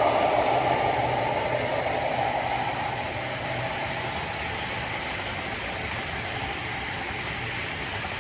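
Model freight train rolling past on the layout's track, a steady rolling noise of wheels and cars. A louder locomotive sound at the start fades away over the first few seconds as the engines move off.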